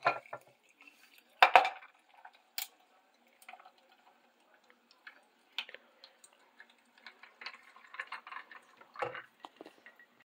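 A glass coffee carafe clinking and knocking as it is handled, then brewed coffee poured over ice cubes in a glass jar, with a run of small clicks and crackles from the ice. A knock near the end as the carafe is set down.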